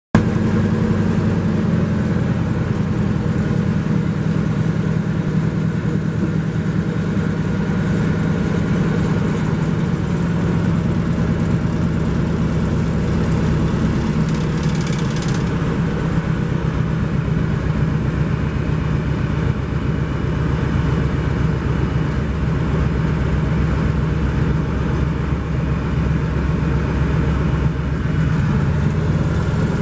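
North American SNJ-5's Pratt & Whitney R-1340 Wasp radial engine and propeller running steadily at low taxiing power, heard from inside the cockpit.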